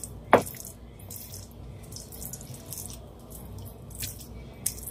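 Wooden spoon folding a thick, creamy chicken pot pie filling in an enamelled pan: wet squelching and scraping in short, irregular strokes. A single sharp knock comes just after it begins.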